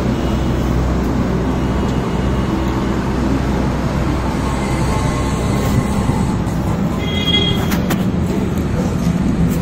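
Steady low rumble of background noise, with a brief faint high-pitched sound and a few light clicks about seven seconds in.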